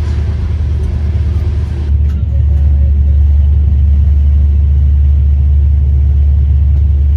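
Loud steady low rumble of a moving vehicle, growing louder about two seconds in.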